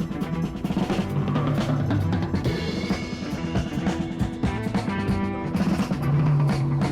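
Background music: an upbeat track with drums and a steady bass line.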